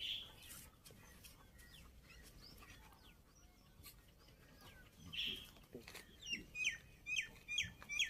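A bird calling in a run of short, hooked chirps, about two or three a second, starting about six seconds in. Before that there is only faint outdoor background.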